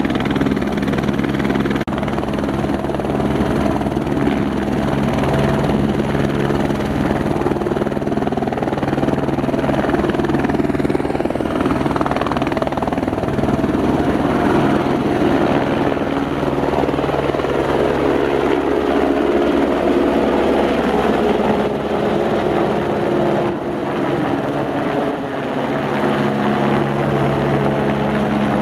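Airbus AStar helicopter running with its rotor turning on the pad, then lifting off and climbing away overhead: a steady engine hum under a fast, regular rotor beat, loud throughout.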